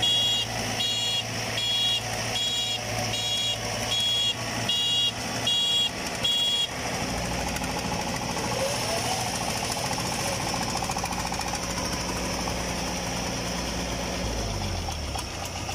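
Diesel engine of a Yanmar crawler-track power tiller running steadily as it works in deep mud, with a repeated short high beep about every 0.8 s for the first six seconds or so. Near the end the engine note falls as it slows.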